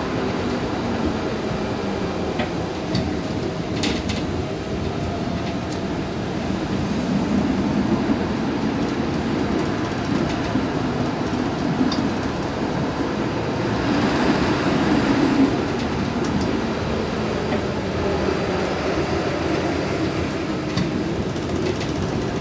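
UTDC CLRV streetcar running along the track, heard from inside the car at the front: a steady rumble of wheels and running gear with a faint whine. A few sharp clicks come through, and the sound grows briefly louder about two-thirds of the way through.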